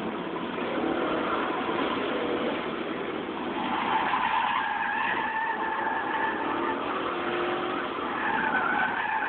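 A car's engine running hard, heard from inside the cabin, with the tyres squealing under hard cornering from about three and a half seconds in, easing off, then squealing again near the end.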